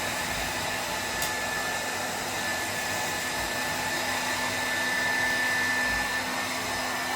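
Hair dryer blowing steadily with a constant whine over the rush of air, drying a German Shepherd's coat. A brief click about a second in.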